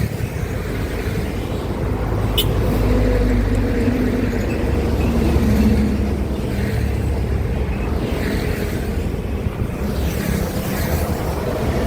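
Heavy road traffic: a large vehicle's engine running low and steady, growing louder for a few seconds about a third of the way in, then easing off. A short sharp click comes about two seconds in.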